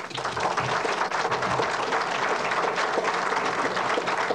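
A room full of people applauding: many hands clapping, starting suddenly and holding steady.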